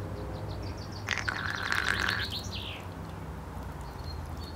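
A songbird singing outdoors: a quick run of high chirps and a dense trill that fades out under three seconds in, over a steady low background hum.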